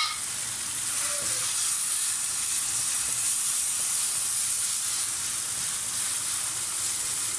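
Chicken mince and spices sizzling steadily in hot oil in a wok.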